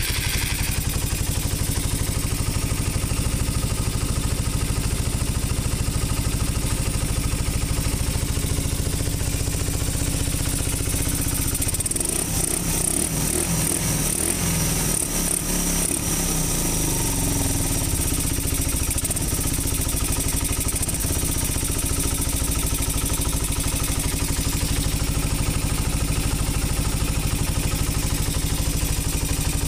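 Suzuki Raider 150 single-cylinder four-stroke engine idling steadily on a newly fitted OKO 28 mm carburetor, at about 1,500 rpm.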